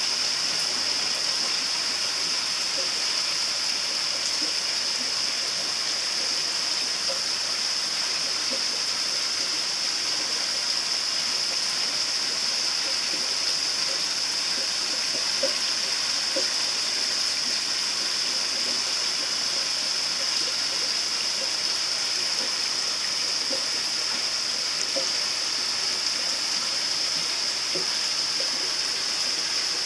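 Water pouring and splashing steadily into a koi pond, a constant rushing hiss with small gurgles and no change in level.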